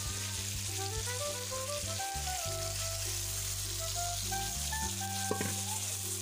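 Fish pieces sizzling steadily as they fry in oil in an iron kadai, under background music with a simple stepping melody.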